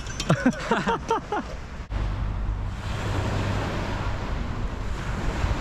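A voice talks briefly, then about two seconds in the sound cuts to steady wind buffeting the microphone with a low rumble, over small waves washing onto a sandy shore.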